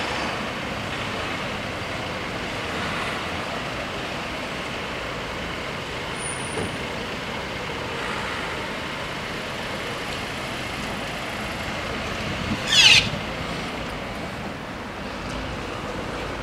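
Steady noise of road traffic and waiting vehicles at a closed level crossing. Near the end comes one short, loud, high squeal that rises in pitch.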